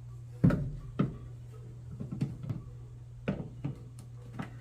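A series of short knocks and clicks, about seven in all and the loudest about half a second in, from tools and parts being handled while taking apart a front-load washing machine's drain pump area, over a steady low hum.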